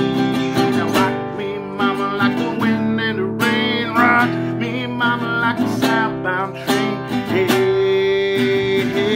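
Acoustic guitar strummed in a steady rhythm, with a man's voice singing short wordless phrases at a few points.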